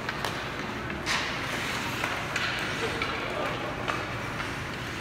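Ice hockey play echoing in a large indoor rink: several short scrapes of skate blades on the ice, over a steady murmur of distant voices.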